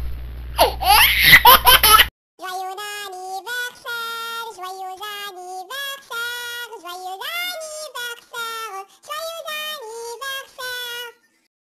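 A baby laughing and squealing for about two seconds, cut off suddenly. Then a high voice sings a children's tune alone, in short held notes that step up and down, stopping shortly before the end.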